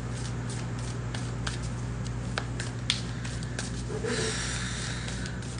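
Tarot cards being shuffled by hand: scattered soft clicks and slaps of card on card, with a breathy hiss lasting about a second about four seconds in, over a steady low hum.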